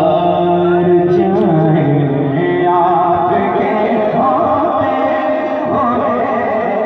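A man's voice singing devotional Urdu verse in long, ornamented held notes that waver in pitch.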